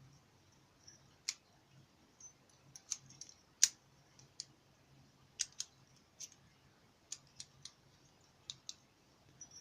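Small, sharp metallic clicks and taps of a padlock being handled, about a dozen spread irregularly, the loudest a little over three and a half seconds in.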